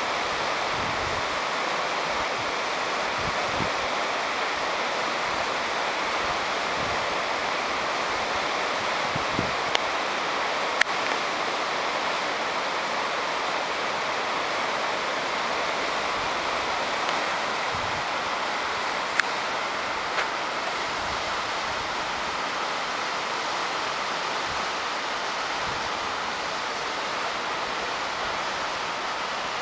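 Steady rushing of river rapids, with a few brief sharp clicks about ten and twenty seconds in.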